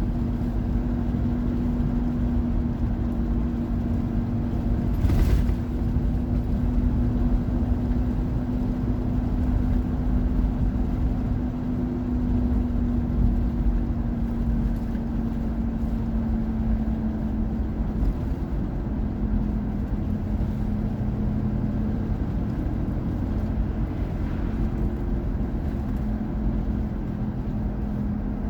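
Car cabin noise while driving: a steady engine drone and low road rumble, the drone's pitch dropping a little about two thirds of the way through. A single brief click about five seconds in.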